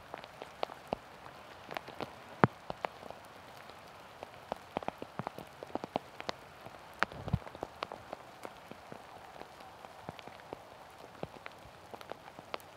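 Steady light rain, with individual raindrops ticking sharply and irregularly, one louder tick about two and a half seconds in.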